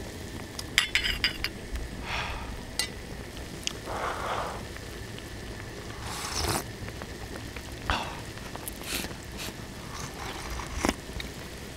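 A ladle clinks against the pan and a small bowl as hot fish cake soup broth is scooped, about a second in; then several sips and slurps of the hot broth from the bowl follow.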